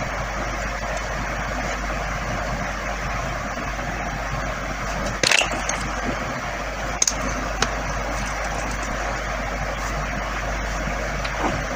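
Steady hiss of background noise, broken by a few brief soft clicks around the middle.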